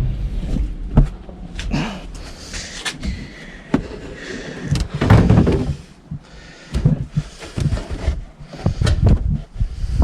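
Volvo XC90 cargo-area floor panel being put back in: a run of knocks, clunks and clicks as it is handled and seated, with the heaviest thump about five seconds in.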